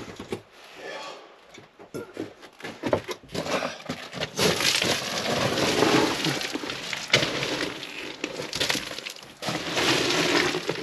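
Footsteps crunching and scrambling over loose rock rubble, with stones clattering: a few scattered knocks at first, then from about four seconds in a dense, continuous run of crunching.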